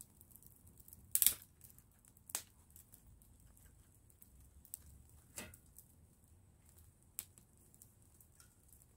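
Wood fire crackling, with scattered small ticks and a few sharp pops, the loudest about a second in.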